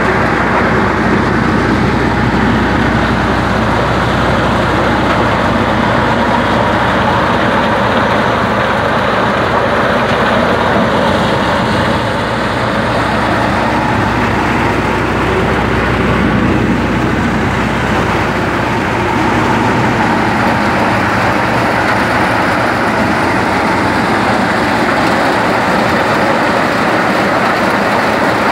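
New Holland 3030 tractor's three-cylinder diesel engine running steadily under load, driving a maize sheller whose threshing drum makes a continuous loud clatter and rush as cobs are fed in. The engine's low hum is strongest in the first half and fades back under the sheller noise later on.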